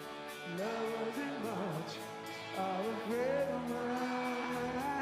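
Background song: a voice singing a melody over instrumental music with a steady beat.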